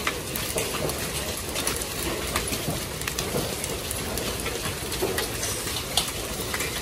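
Hail and rain falling on wet concrete paving stones: a steady patter with many irregular sharp ticks of hailstones striking.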